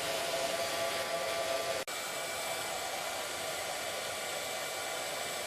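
Handheld hair dryer blowing steadily, a constant rushing hiss with a faint fixed whine, drying the coat of white glue on the foam squishy. It cuts out for an instant about two seconds in, then carries on.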